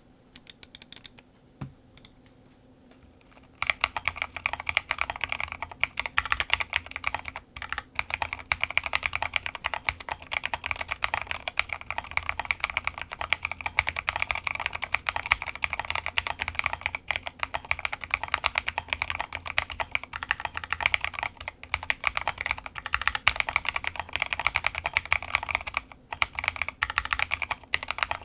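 Fast typing on a 40% mechanical keyboard with a clear acrylic case and plate, lubed NK Cream linear switches and KAT-profile blank keycaps. A few separate keystrokes come first, then a short pause, then steady rapid typing from about three and a half seconds in, with brief breaks.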